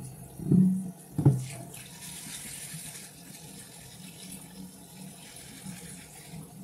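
Kitchen tap running into a sink during hand dishwashing, a steady hiss of water, with two dull knocks of dishes in the first second and a half.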